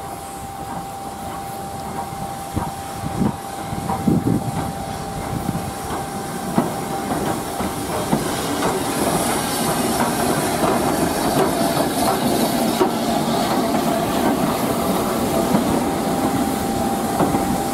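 Southern Railway S15 class steam locomotive No. 847 and its coaches passing slowly: steam hissing and wheels clicking over the rail joints. The sound grows louder as the train draws near, and the clicking thickens as the coaches roll by. A faint steady tone runs underneath.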